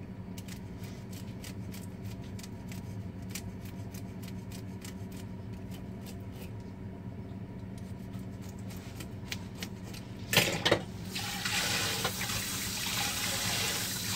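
Light scraping ticks, several a second and uneven, from a milkfish being scaled by hand over a colander in a stainless steel sink. About ten seconds in, the kitchen faucet is turned on with a splash, and water then runs steadily into the sink.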